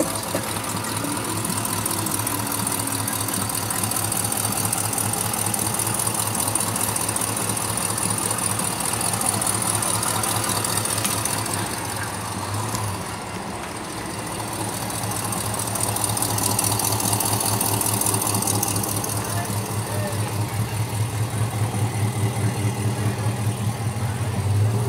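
A car engine idling with an even low pulse, which grows stronger toward the end.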